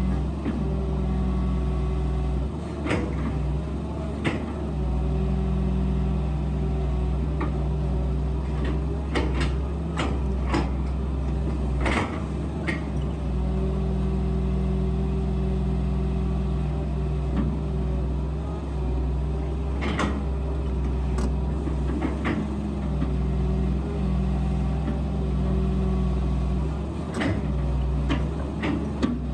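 Excavator's diesel engine running steadily under varying load, with sharp knocks every few seconds as it works the stump; the loudest knocks come about twelve and twenty seconds in.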